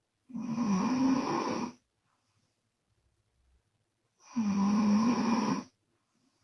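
A woman snoring on the out-breath, with her lips flapping as the air leaves (a 'mouth flipper' snore). There are two loud snores about four seconds apart, each lasting about a second and a half, with a wavering buzzy pitch.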